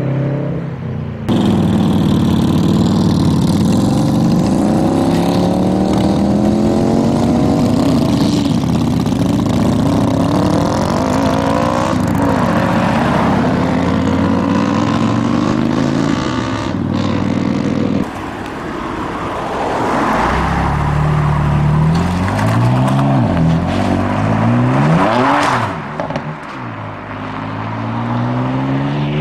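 A series of vehicles accelerating away one after another, joined by abrupt cuts: a Subaru Impreza at the very start, then cruiser motorcycles pulling off, then a car revving through the gears, and a BMW M3 near the end. The engine notes climb and drop repeatedly with the gear changes.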